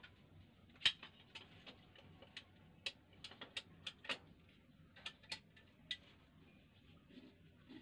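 Faint, irregularly spaced sharp ticks and clicks, about fifteen over several seconds, the loudest about a second in, over a faint low steady hum.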